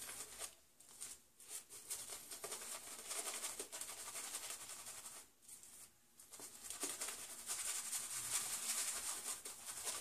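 Omega 11775 boar-bristle shaving brush scrubbing shaving cream into a lather on the face: a fine, crackly bristling swish with two short pauses, about a second in and just after five seconds. The lather is on the dry side.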